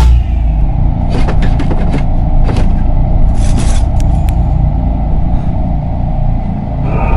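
Horror-film sound effect: a sudden loud hit, then a steady low rumble broken by short bursts of hissing static. Near the end some faint steady tones come in.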